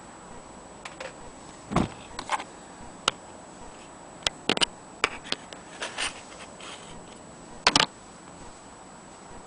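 Irregular clicks and knocks of hard objects being handled, with no steady rhythm. The loudest knock is about two seconds in, with a cluster of louder clicks near the end.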